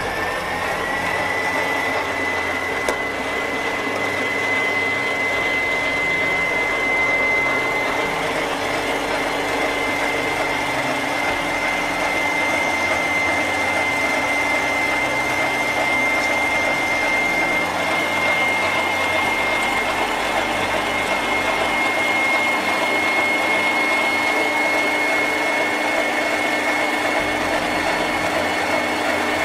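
Kenwood stand mixer running at speed, its whisk beating egg whites and sugar into meringue. The motor comes up to speed just as it starts, then holds a steady high whine over a constant whirr.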